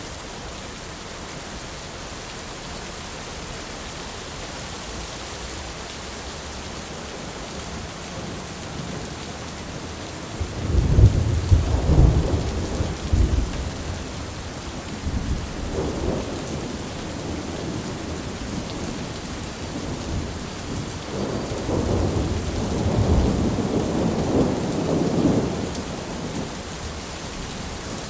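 Steady heavy rain hissing, with thunder rumbling in: a loud low crack and rumble about ten seconds in, a short grumble a few seconds later, and a longer rolling peal near the end that fades back into the rain.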